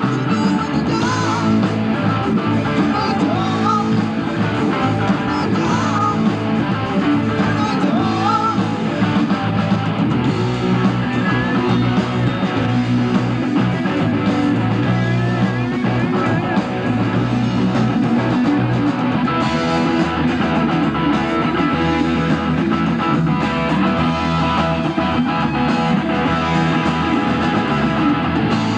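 Live rock band playing: electric guitars, bass and drums, with a lead guitar line bending notes.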